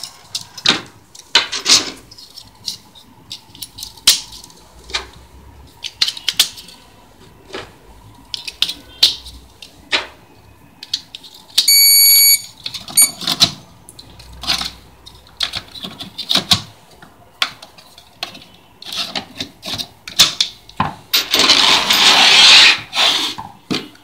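Clicks, taps and knocks of an RFID hotel door lock being handled as its batteries are fitted, with one short electronic beep from the lock about halfway through. A longer rustling noise near the end is the loudest sound.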